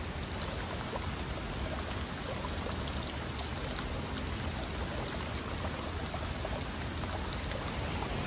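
Water running in a thin stream from a dragon-head spout into a stone shrine water basin, small splashes ticking over a steady rush of water.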